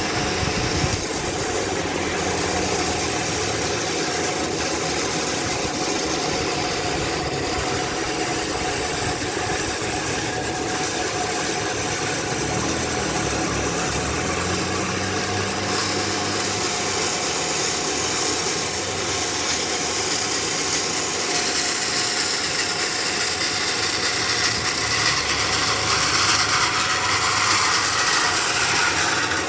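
Band saw (gergaji selendang) running steadily while ripping wood, a continuous machine drone with a steady whine, getting a little louder and harsher near the end.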